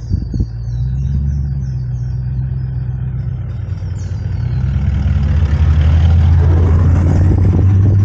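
Four-wheel-drive vehicle driving on the island's sand tracks, its engine and drivetrain making a steady low drone that grows louder about five seconds in. A few knocks of the vehicle are heard at the start.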